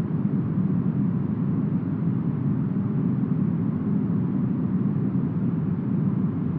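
Smoothed brown noise: a steady, deep rushing hiss with its weight low down and nothing above the treble, unchanging throughout.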